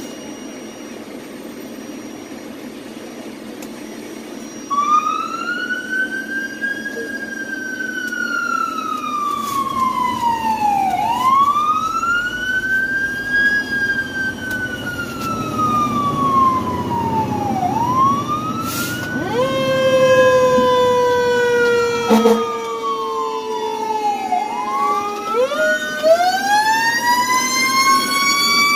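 Fire truck siren wailing, heard from inside the cab over the engine and road rumble. It starts about five seconds in and rises and falls about every six seconds. About two-thirds of the way through, a second, lower tone slides slowly downward alongside the wail, and there are a couple of sharp knocks.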